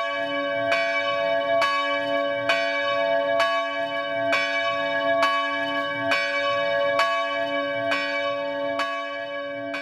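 Church bell ringing steadily, struck evenly a little more than once a second, each strike ringing on into the next.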